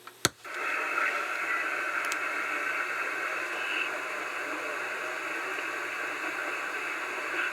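A short click, then steady hiss of CB radio static from the receiver's speaker, the open channel heard with no station transmitting.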